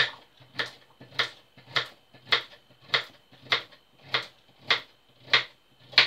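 Kitchen knife chopping a carrot on a wooden chopping board, the blade knocking the board in an even rhythm of a little under two chops a second.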